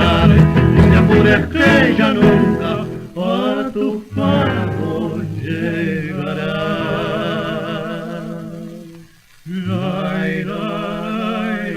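A male vocal duo on a 1931 78 rpm record, singing with two guitars. Guitars strum for about the first three seconds, then the voices hold long notes with a wide vibrato, break off briefly about nine seconds in, and take up another held note.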